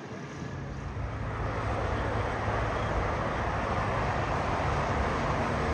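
Jet airliner engines on the runway: a steady rushing noise with a deep low hum that grows louder about a second in and then holds.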